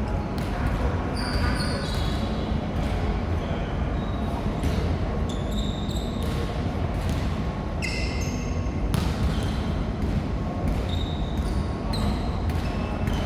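Live band playing, heard as a loud, dense mix with heavy bass and a run of sharp drum hits.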